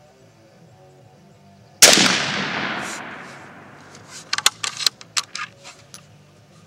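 A single rifle shot from a Mosin-Nagant 91/30 firing 7.62x54R, loud and echoing away over about two seconds. A couple of seconds later comes a quick run of sharp metallic clicks and clacks, the bolt being worked.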